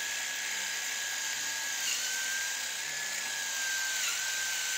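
Cordless drill running steadily at speed, boring a pocket hole into a pine board with a stepped pocket-hole bit guided through a jig. A high, even whine that sags briefly in pitch twice as the bit bites into the wood.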